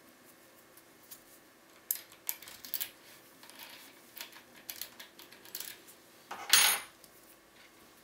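Light metallic clicks and clinks of a key and small metal tools being handled and set down, with a louder metal clatter and a brief ring about six and a half seconds in.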